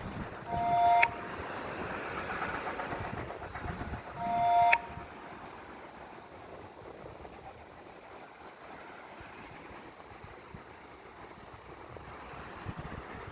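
Waves washing on the shore with wind noise, broken near the start by two short two-tone horn blasts about three and a half seconds apart, each cut off sharply; the horn blasts are the loudest sounds.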